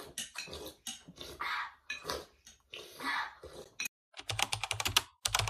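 Slurping and spoon-on-bowl sounds of people eating, then about four seconds in a rapid run of typewriter-style key clicks, a sound effect accompanying on-screen text being typed out.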